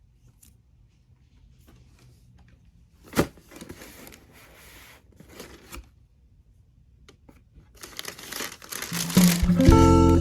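Packaging being handled: a sharp click about three seconds in, then paper rustling and tearing in short bursts. Strummed acoustic guitar music comes in near the end.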